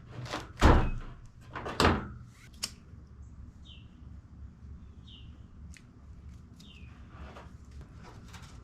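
Two loud knocks about a second apart, then a sharp click. After that comes low room noise with three faint, short, high chirps that fall in pitch.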